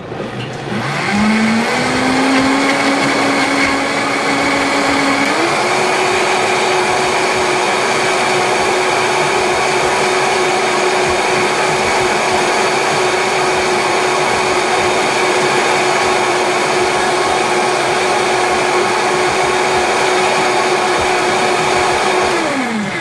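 Vitamix blender motor spinning up about a second in and rising in pitch, stepping up to a higher speed around five seconds in, then running at a steady whine while it whips orange juice and a banana into a frothy drink, and winding down near the end.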